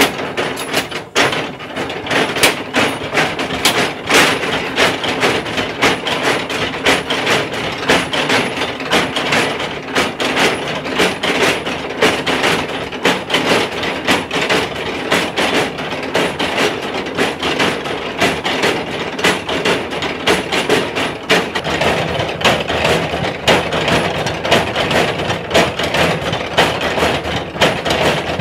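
Motor-driven four-pestle stamp mill pounding red chili pepper: its steel pestles drop into the mortars one after another in a fast, uneven, repeating clatter of thuds and knocks.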